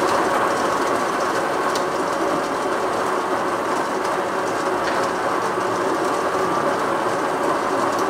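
Built-in stainless steel burr grinder of a Wirsh Home Barista Pro espresso machine grinding coffee beans into a portafilter, running steadily. It is grinding a timed single-shot dose.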